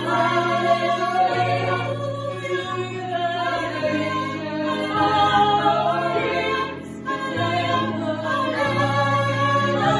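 Gospel choir singing in harmony, holding long chords that change every second or so, with a brief dip in loudness about seven seconds in.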